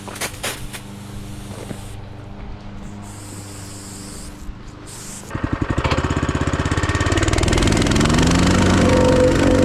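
A small engine starts about five seconds in, catching with rapid firing, then revs up and settles into a steady run. Before it starts there is only a low hum and a few light clicks.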